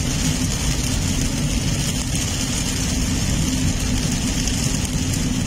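Heavy rain hitting a car's roof and windshield, heard from inside the cabin as a steady hiss over the car's low engine rumble.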